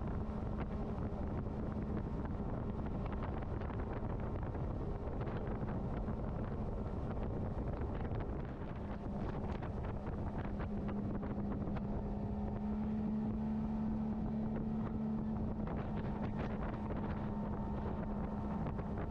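Boat's outboard motor running steadily under way, with wind buffeting the microphone; the engine note rises a little about halfway through.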